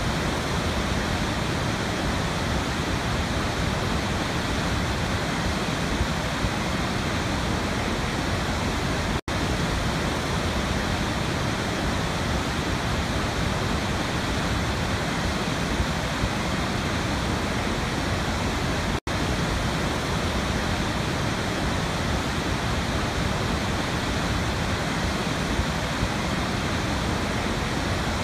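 Steady, even rushing noise, an ambient water-like noise track with no music, cutting out for an instant about nine seconds in and again about nineteen seconds in.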